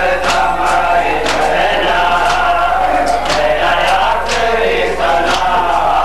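Crowd of men chanting a Muharram noha together, with sharp chest-beating (matam) slaps keeping time, two strokes roughly every second.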